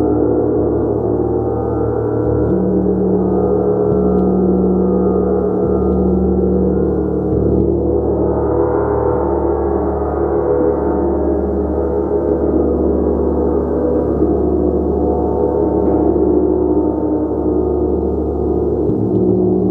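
A large gong played continuously, its dense wash of many overlapping sustained tones humming steadily, swelling brighter around the middle.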